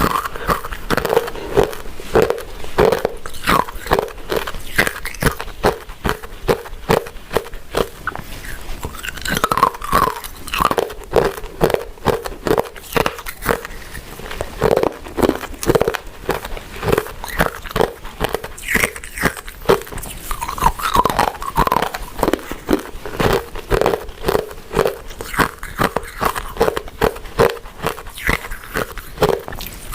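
A person chewing sticky glutinous rice cakes and mochi: a continuous run of wet mouth clicks and smacks, several a second.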